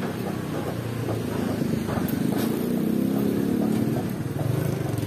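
Motorcycle engine of a tricycle running close by, growing louder through the middle, over busy street noise with scattered light knocks.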